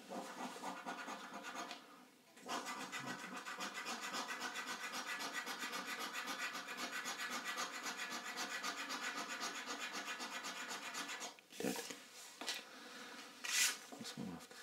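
A coin scratching the scratch-off coating from a paper scratchcard in rapid back-and-forth strokes: a short burst, a brief pause, then about nine seconds of steady fast scraping. Near the end the scraping stops and a few sharp rustles follow as the card is handled.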